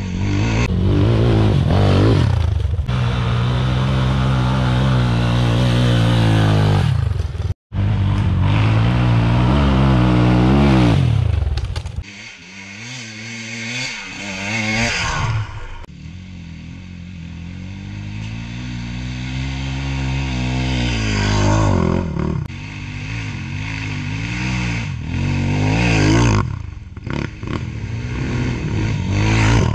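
Enduro motorcycle engine under hard throttle as it is ridden, its pitch repeatedly rising and falling with the revs. The sound cuts out for an instant about seven and a half seconds in.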